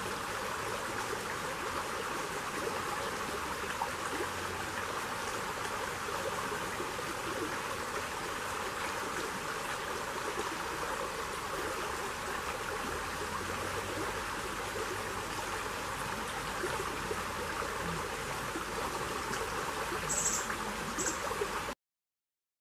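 Shallow forest stream running over rocks and a log: a steady rushing, gurgling flow of water. Near the end there are two brief high-pitched sounds, and then the sound cuts off suddenly.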